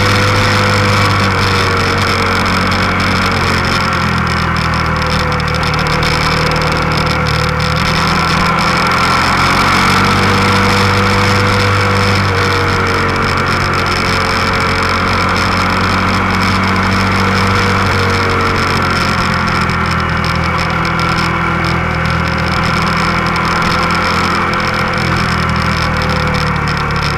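Motorcycle engine running steadily under way, heard from the bike itself, its pitch rising and falling gently a few times as the throttle is eased on and off, over a constant rush of wind and road noise.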